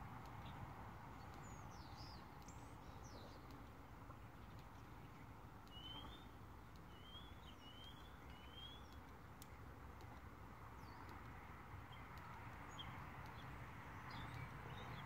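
Faint low background noise with small birds chirping on and off: a few quick high chirps near the start, a string of four or five short rising calls in the middle, and a few more toward the end.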